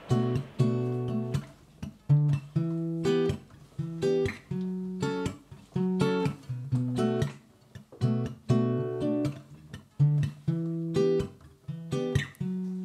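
Acoustic guitar playing an instrumental passage of sharply struck chords, each left to ring and fade, in a steady rhythm.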